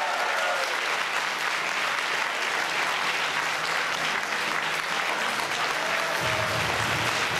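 An audience applauding steadily in a hall.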